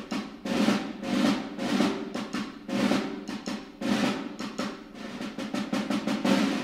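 Drum music: snare drums playing loud, sharp strokes with quick rolls between them.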